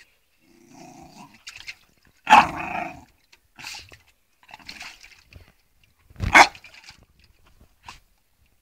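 Dog barking, two loud barks, one about two seconds in and another about six seconds in, with quieter short sounds in between.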